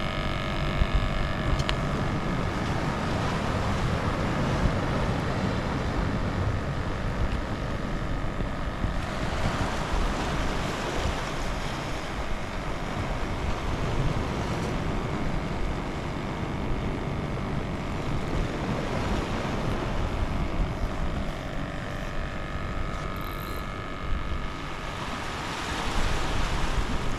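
Wind buffeting the microphone over the sound of sea waves, with a faint steady hum beneath. The noise swells for a few seconds about a third of the way in and again near the end.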